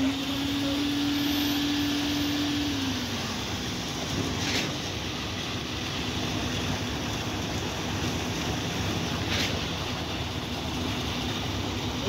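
Truck-mounted concrete boom pump's diesel engine running steadily, with a held hum that drops in pitch about three seconds in as the engine slows. A faint short hiss comes twice, about five seconds apart.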